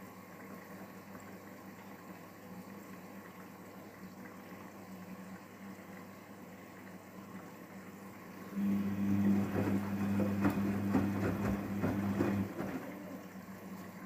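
Daewoo DWD-FT1013 front-loading washing machine in the wash phase of a quick 40°C programme. After a faint hum, the drum motor starts about eight and a half seconds in and turns the drum for about four seconds, with a steady hum and the sloshing of water and wet laundry, then stops.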